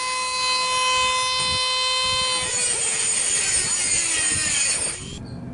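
Dremel rotary tool with a small cut-off wheel whining steadily at full speed, then cutting into an iron pipe flange from about two and a half seconds in: the pitch sags and wavers under load with a gritty grinding edge, and the tool stops near the end.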